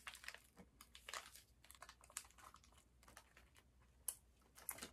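Faint crinkling and clicking of a cookie's plastic wrapper being opened and handled, then quiet chewing as the cookie is eaten.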